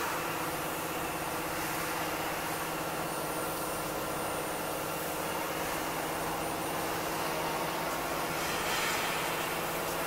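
Steady mechanical hum with several steady tones over a wash of noise, unchanging throughout.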